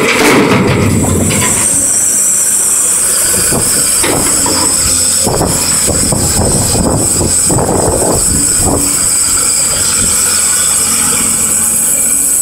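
Caterpillar 329D hydraulic excavator at work: its diesel engine running steadily under load, with a high steady whine and a run of metallic clanks and scrapes in the middle.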